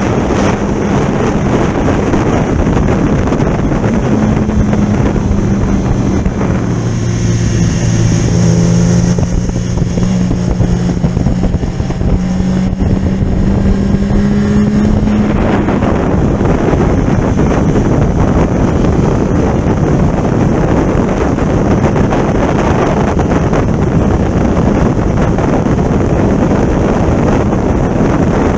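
Heavy wind buffeting on the microphone of a moving motorcycle, with the engine's steady note coming through from about 4 s to 15 s and rising a little before it fades back under the wind.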